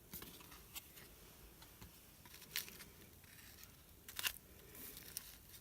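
Faint handling sounds of paper cards and small items: soft rustles with a few light clicks and taps, the sharpest about four seconds in.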